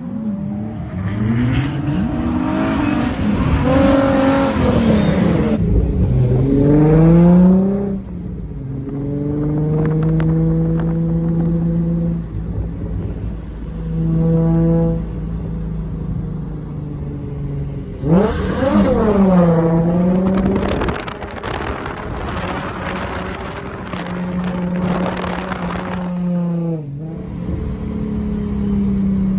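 Holden VY Commodore Calais engine revving hard and falling back again and again while drifting, with loud bursts of tyre squeal around the high-rev stretches about a second in and again near the middle.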